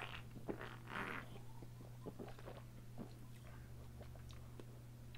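Faint mouth and swallowing sounds of someone drinking from an aluminium energy-drink can, with a short breathy sound about a second in, followed by a few small clicks.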